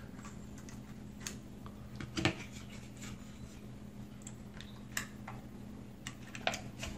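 Plastic housing of a 40-volt power-tool battery pack being handled and fitted back together: scattered light clicks and taps, with a louder knock about two seconds in and a sharp click about five seconds in.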